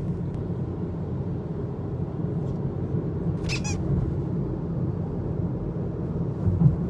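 Steady low road and engine rumble of a car in motion, heard from inside the cabin, with one brief high-pitched squeak about three and a half seconds in.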